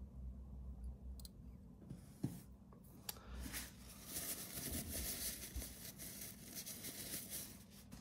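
Hands handling a fountain pen and its ink converter after filling: a couple of light clicks about two and three seconds in, then several seconds of soft rustling and rubbing.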